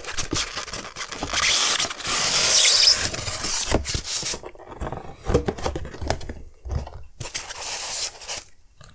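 A black cardboard box being opened and a styrofoam packing block slid out of it: a loud scraping rush of cardboard and styrofoam rubbing for about two seconds. After that come lighter rustles and taps of the cardboard and packing being handled.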